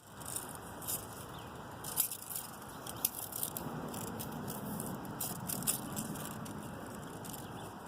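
Steady rain falling, a constant hiss with irregular sharp drip and tap sounds scattered through it.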